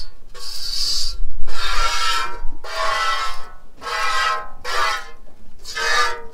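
Goat's milk squirting by hand into an empty stainless steel bowl, about six squirts at a steady rhythm of a little over one a second, each a hissing spurt that sets the bowl ringing.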